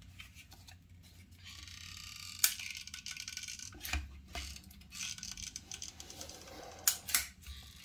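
Caulking gun of heavy-duty construction adhesive being worked by hand: a handful of sharp clicks from the gun's trigger and plunger mechanism, with light rubbing and handling noise in between.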